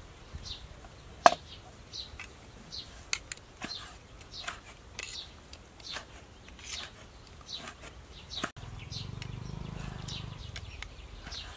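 Small birds chirping over and over in short, high, downward-sliding calls, with one sharp click about a second in and a low hum for a couple of seconds after the sound cuts near the end.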